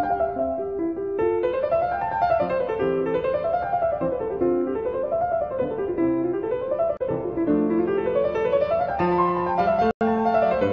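Background piano music: flowing arpeggios that rise and fall in repeating waves. The sound drops out for an instant near the end.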